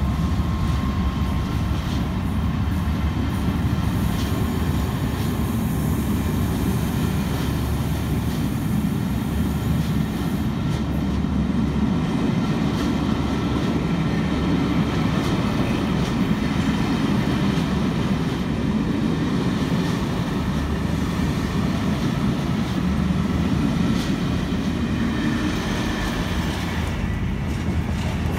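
Passenger carriages rolling slowly past: a steady rumble of wheels on the rails. Near the end, a long train of tank wagons rolls through.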